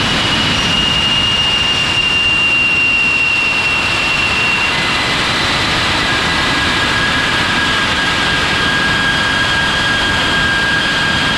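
Ramjet motor firing on a static test stand: a loud, steady rushing roar with a high whistle through it that gives way to a lower-pitched whistle about halfway through.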